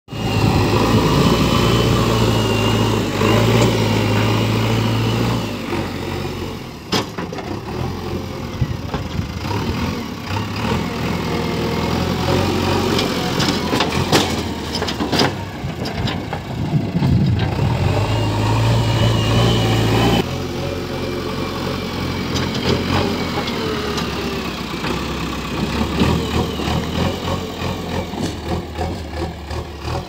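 JCB 3DX backhoe loader's diesel engine running steadily, its pitch and load changing a few times as the front loader bucket pushes and levels soil. A few sharp clanks come in the middle.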